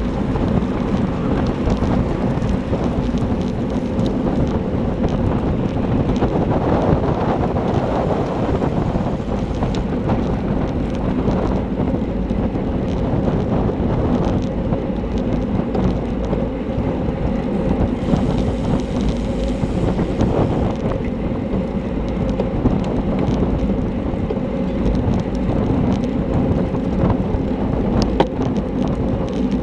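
Steady wind buffeting a handlebar-mounted camera's microphone, over the rumble of a road bike's tyres at race speed.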